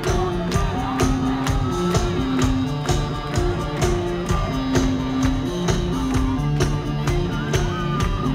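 Rock band playing: a steady driving drum beat with bass notes and guitar or keyboard lines.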